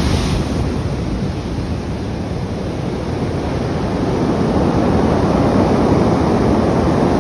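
Heavy storm surf whipped up by a tropical cyclone, breaking and washing up a beach: a steady rush of water that grows a little louder in the second half.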